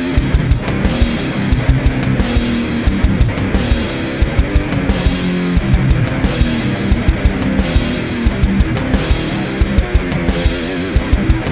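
Heavy rock backing music with guitar and a fast, driving drum beat.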